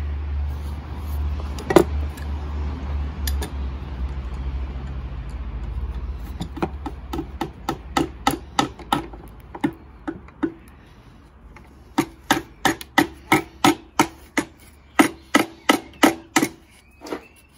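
A hammer striking wood repeatedly at about three blows a second, in two runs with a short pause between them. Each blow rings briefly, and a single knock comes a couple of seconds before the first run.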